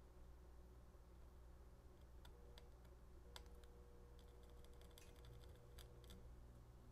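Near silence: a faint steady low hum, with a few faint, light clicks scattered through it.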